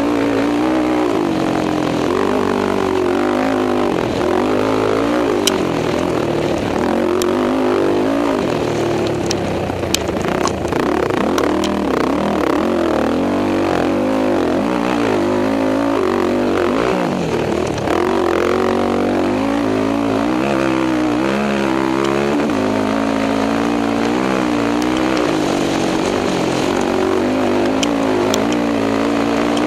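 Race quad (ATV) engine running hard under load, its pitch rising and falling continually with the throttle over rough desert track. Scattered sharp clicks sound over the engine.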